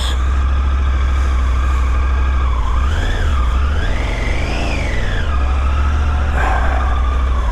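Motorcycle engine running as the bike rides off, its pitch rising and falling twice between about three and five seconds in, over a steady low rumble.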